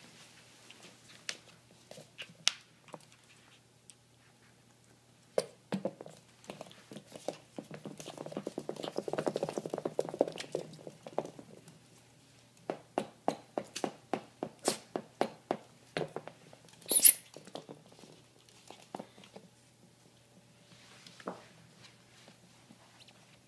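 American Eskimo puppy playing roughly with a rubber squeak toy on a hardwood floor: irregular clicks and taps of claws and teeth on the toy and floor, at times in quick runs of three or four a second. There is one sharp, high squeak from the toy about seventeen seconds in.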